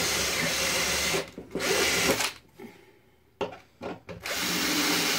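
Cordless drill boring rivet holes through a steel fitting strip on a wooden shield. It runs in bursts: about a second, a brief stop, another short run, a pause of about a second with a few short blips, then it runs steadily again.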